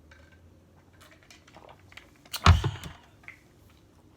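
Small clicks and clinks of a cup of iced juice handled while drinking, with one loud knock about two and a half seconds in.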